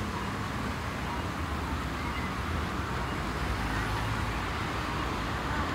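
Steady urban road traffic: a continuous rumble of passing cars and tyre noise.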